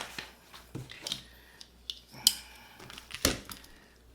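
Scattered hard plastic clicks and knocks from pressure washer parts being handled and fitted, with a sharp click a little after two seconds and the loudest knock about three seconds in.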